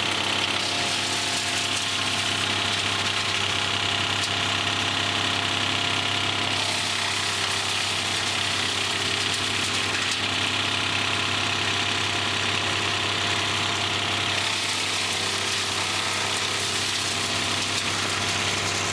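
1998 Vermeer 1250 BC wood chipper's engine running steadily at constant speed, with an even drone.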